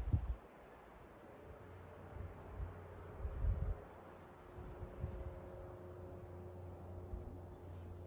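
Quiet forest ambience: a short, high chirp repeats every half second to a second over faint hiss, with a low rumble that swells about three and a half seconds in.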